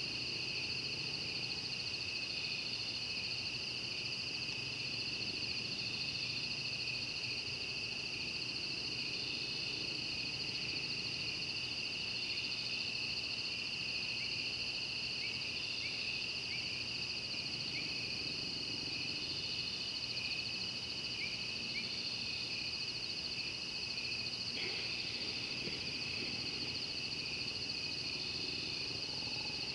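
Night chorus of insects: a steady, high, continuous trilling in two pitches, with a short chirp repeating every couple of seconds and a few brief lower chirps in the middle.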